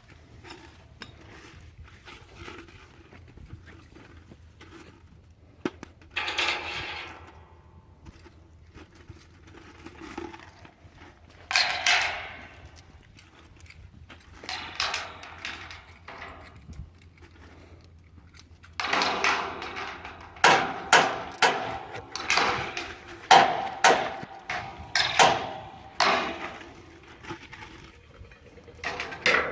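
Metal parts clinking and knocking as they are handled, with several longer rattling, scraping bursts that crowd together in the second half.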